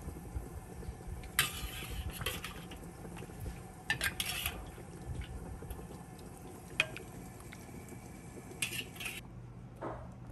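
A metal wok spatula scraping across the bottom of a wok as pieces of tofu are scooped out, three short scrapes with light clinks of metal between them.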